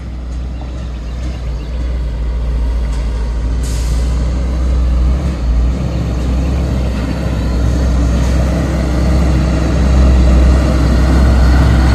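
Truck engine running with a steady low rumble that grows louder, and a short hiss about four seconds in like an air brake.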